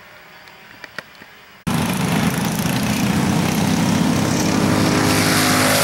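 Single-cylinder Briggs & Stratton 206 four-stroke kart engine running at speed on track, holding a steady pitch. It cuts in loudly and suddenly about a second and a half in, after a quiet stretch.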